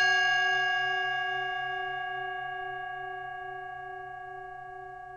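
A singing bowl, struck once just before, ringing and slowly fading, its low tone wavering in a slow beat.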